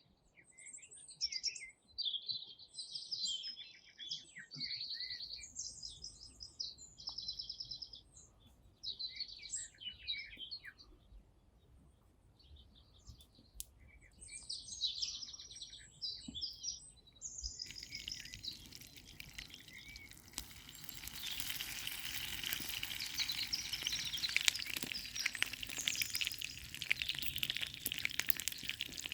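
A songbird singing in short repeated chirping phrases. About two-thirds of the way in, the sound changes abruptly to food sizzling and crackling as it fries, which grows louder toward the end.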